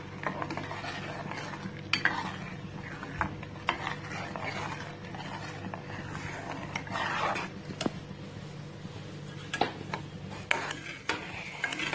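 A metal ladle stirring thick ragi-and-milk porridge in a metal pan, with irregular clinks and scrapes against the pan's sides and bottom. It is being stirred steadily so that the added jaggery dissolves and the porridge doesn't lump at the bottom.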